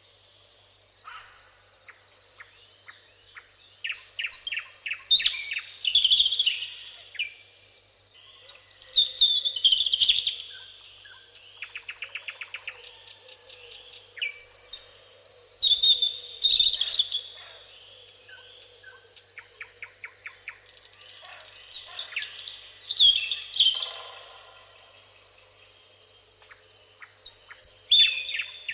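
Several songbirds singing in a meadow chorus: overlapping chirps, whistled phrases and quick rattling trills, coming in louder bursts every few seconds, over a steady high-pitched insect drone.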